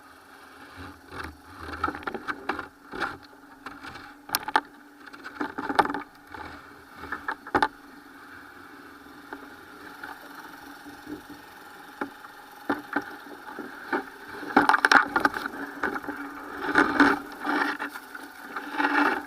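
Irregular wooden knocks, scrapes and creaks from a boat being handled, over a steady hum. The knocks cluster and grow loudest near the end.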